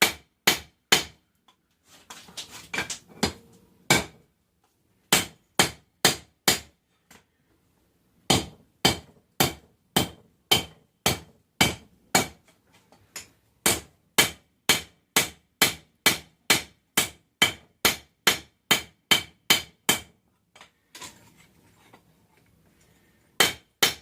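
Hand-hammer blows on a hot 1080 high-carbon steel knife blank on an anvil, about two strikes a second, each with a bright metallic ring. The blows come in runs with short pauses between them, as the blank is forged slightly thinner.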